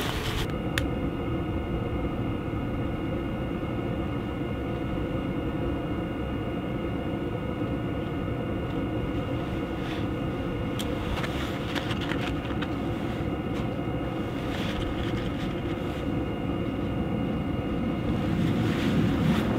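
1991 Volkswagen Vanagon being driven, heard from inside: a steady drone of engine and road noise with a few light clicks and rattles.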